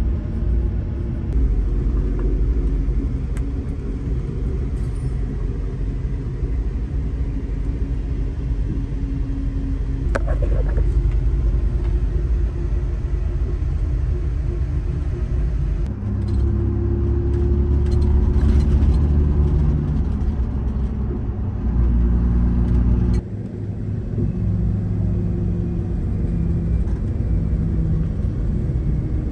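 Cabin noise inside a moving highway bus: a steady low rumble of engine and tyres, with engine tones that shift in pitch. A single sharp knock comes about ten seconds in, and the rumble grows heavier for several seconds before dropping off suddenly.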